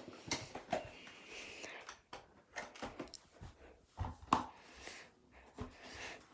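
Cardboard box and plastic packaging being handled by hand: scattered light taps, clicks and soft rustles, with a couple of sharper knocks about four seconds in.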